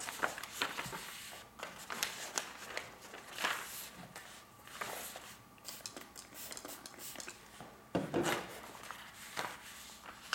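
Sheets of thin rice paper and backing paper being picked up, moved and laid flat, with intermittent rustling and crinkling; the busiest handling comes near the start and again about eight seconds in.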